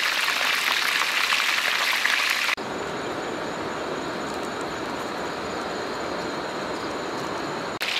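Whole chicken sizzling with fine crackles in hot oil in a wok, cutting off suddenly about two and a half seconds in. A quieter, steady rushing background with a faint high whine follows.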